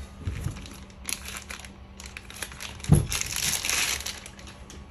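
Plastic parts bag crinkling as it is opened and handled, with scattered small clicks and one louder knock about three seconds in.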